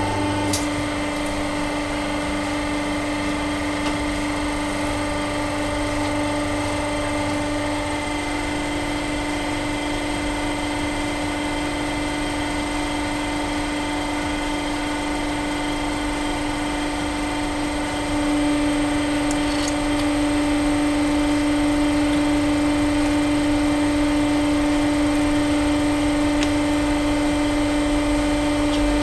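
Home-made hydraulic press's pump running with a steady hum, getting louder about two-thirds of the way through while the ram crushes a large wax candle, with a few faint clicks.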